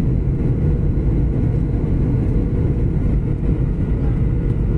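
Steady low roar of jet airliner cabin noise, the engines and rushing air heard from inside the cabin during the descent before landing.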